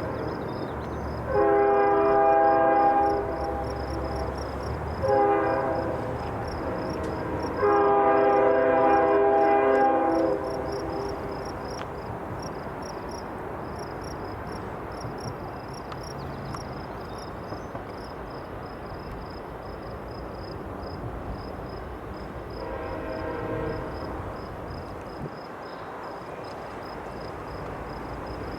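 CN freight locomotive's multi-note air horn sounding for a grade crossing: a long blast, a short one, then another long one in the first ten seconds, over the steady rumble of the train. A fainter horn blast comes about twenty-three seconds in.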